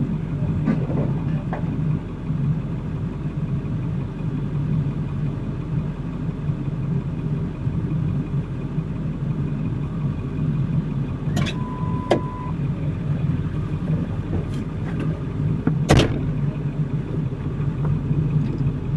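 Vehicle engine idling steadily. A few sharp clicks or knocks come over it, the loudest about two-thirds of the way in, and there is a short beep a little past halfway.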